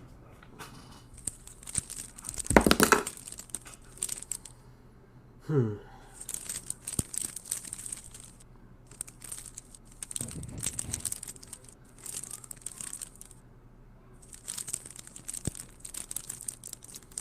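Rustling and crinkling handling noises come in irregular spells, with a louder clatter about three seconds in.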